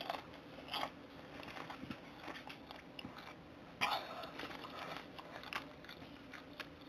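Person chewing a mouthful of popcorn: quiet, irregular crunching, with a couple of louder crunches about a second in and about four seconds in.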